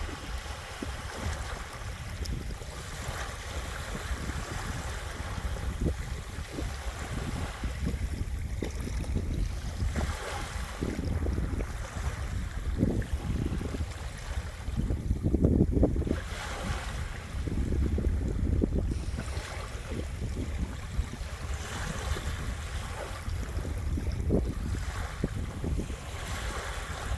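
Waves washing onto a beach at ebb tide, swelling and fading every few seconds, over a steady low rumble of wind on the microphone.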